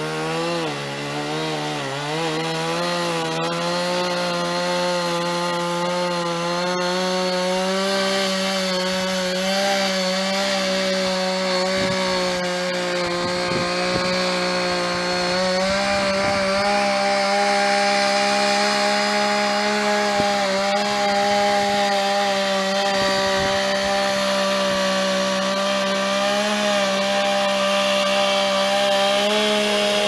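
Two-stroke chainsaw cutting into the trunk of a standing poplar to fell it, its engine held at a steady high speed under load. Its pitch dips briefly about a second in, then stays level.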